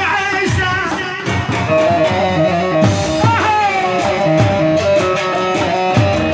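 A man singing an Arabic song into a microphone, amplified over loud backing music with a steady drum beat.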